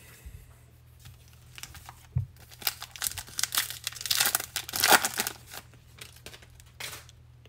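Foil wrapper of a 2021 Bowman baseball card pack crinkling and tearing as it is ripped open by hand, loudest about two to five seconds in, with a short crinkle near the end.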